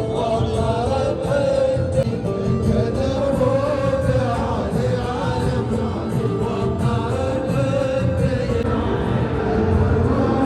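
A traditional Gulf wedding song: a group of voices singing together over sharp, regular percussive beats.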